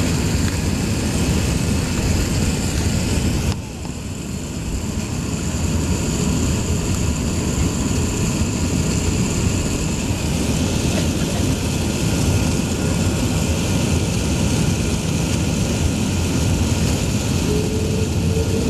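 Steady cabin noise of an Airbus A380 taxiing with its engines running, heard from inside the passenger cabin. The level drops suddenly about three and a half seconds in, and near the end a thin whine that rises slightly joins in.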